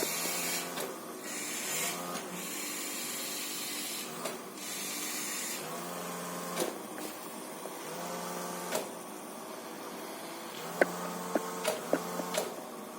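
Small electric motors of a homemade floor washing machine running steadily, with repeated bursts of hiss in the first half and a few sharp clicks near the end.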